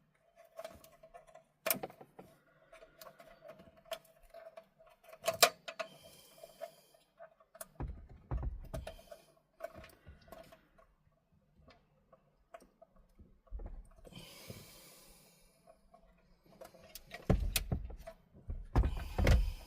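Scattered sharp clicks and knocks of hard plastic dash parts being worked loose by hand, which are a little bit stiff, with a few dull thumps about eight seconds in and again near the end.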